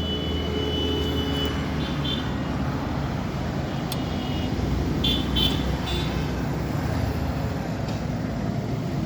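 Road traffic going past with a steady low rumble, and a few short high-pitched tones near the start and about five seconds in.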